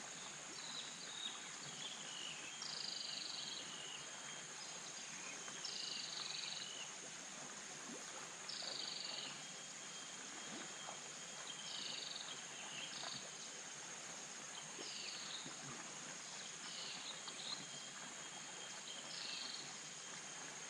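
Outdoor animal chorus: a steady high insect drone, with a short high chirping call repeated every two to three seconds.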